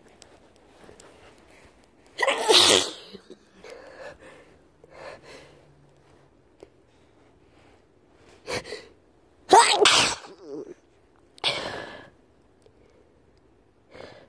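A person sneezing over and over in a sneezing fit, with several sneezes of differing strength. The two loudest come about two and a half seconds in and about ten seconds in. The fit was set off by sniffing a powder.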